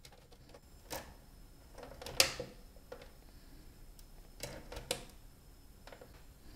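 A handful of small, sharp clicks and light knocks from hands working the front panel of a micro hi-fi unit around its headphone jack, the loudest about two seconds in.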